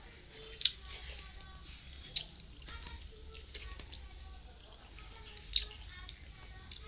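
Wet mouth smacks of someone eating the last scraps of food off his fingers, four sharp ones spread through.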